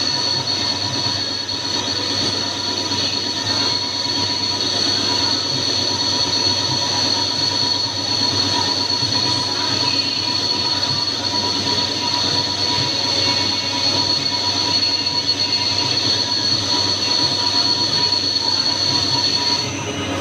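Wintec TC15 CNC lathe running, with a steady high-pitched whine over the machine noise that stops shortly before the end.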